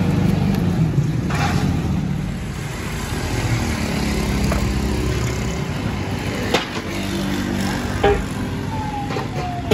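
Motor traffic running past on the street, a steady low engine hum. Firewood logs knock sharply a couple of times in the second half as they are shoved into a clay wood-fired stove, and near the end a tone falls slowly in pitch.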